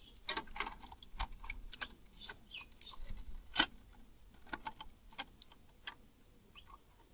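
Cookware and utensils clinking and knocking while being rinsed and handled: scattered light clicks at uneven intervals, with one sharper knock about three and a half seconds in.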